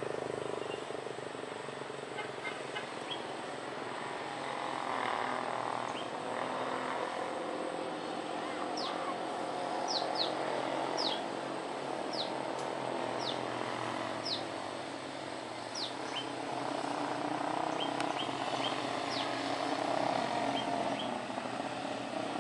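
Steady distant rumble of a twin-engine jet airliner landing and rolling out along the runway. Birds call over it: quick downward-sweeping whistles about once a second through the middle, and scattered short chirps.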